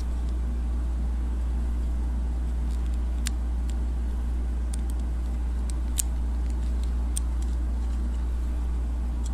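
Steady low hum with a few faint clicks of small plastic toy parts being fitted together, the sharpest about six seconds in.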